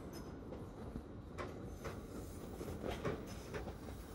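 LNER Azuma passenger train rolling slowly through the station: a steady low rumble with a few faint wheel clicks over the rail joints.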